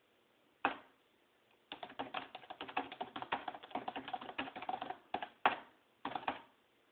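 Fast typing on a keyboard: a single keystroke, then a quick, dense run of keystrokes for about three seconds, followed by a few scattered keystrokes near the end.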